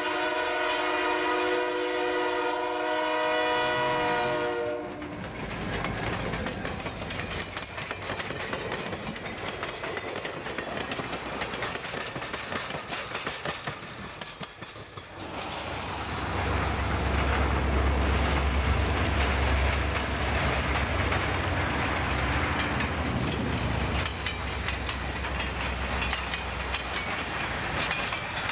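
Diesel locomotive air horn sounding a multi-note chord, cutting off about five seconds in, followed by the rolling rattle of a passing train. Past the middle a loud, deep diesel engine rumble sets in as a locomotive passes close, easing off near the end.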